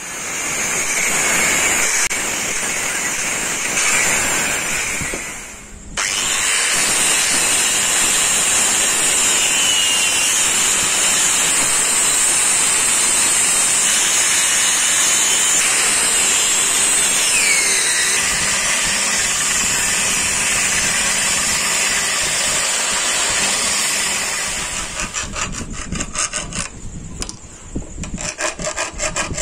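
Angle grinder running steadily against a wooden axe handle, with a short break about six seconds in. Near the end it gives way to quick, rhythmic strokes of a hand file rasping the wood.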